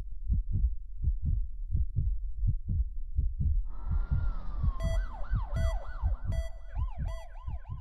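Electronic outro sound design: a low, heartbeat-like bass pulse thumping about three times a second, joined about four seconds in by a wailing, siren-like synth tone that swoops up and down over and over, with short high beeps.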